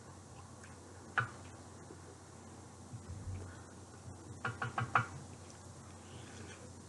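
A wooden spoon clicking against a bowl of red lentil soup while eating: a single click about a second in, then a quick run of about five clicks a little past halfway as the spoon scoops.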